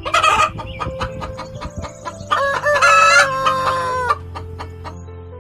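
A rooster crows once, a loud call of about two seconds ending a little over four seconds in, after a short loud burst at the start. Background music plays underneath.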